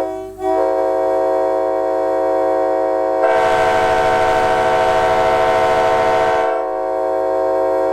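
Raised-letter Nathan K5LB five-chime locomotive air horn sounding its chord in long blasts, breaking off briefly near the start. A loud rushing hiss joins the chord for about three seconds in the middle.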